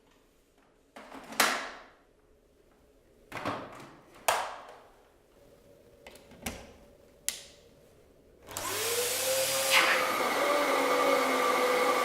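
A handful of sharp plastic clicks and knocks, then a Dyson DC14 upright vacuum cleaner is switched on about two-thirds of the way through. Its motor spins up with a rising whine and runs steadily.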